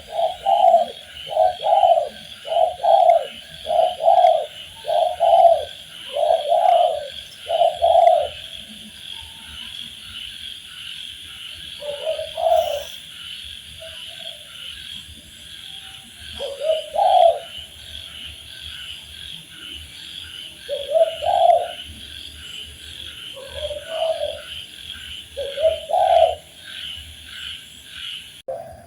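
Spotted dove cooing: a quick run of about a dozen low coos in the first eight seconds, then single coos every few seconds. A steady high chirring chorus runs underneath.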